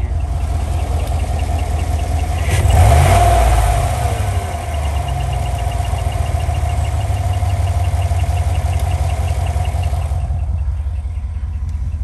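2015 GMC Denali's L86 6.2 L V8 idling, given a short rev about three seconds in. A fast, even ticking and squeak runs over the idle: the noise of a chewed-up roller lifter on a worn cam lobe.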